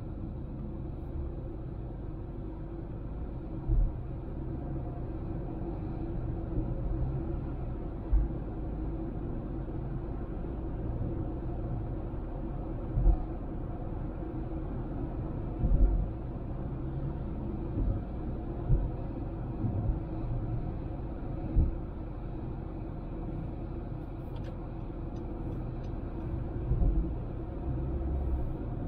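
Honda Civic driving: a steady rumble of engine and road noise, with a few short low thumps at irregular intervals.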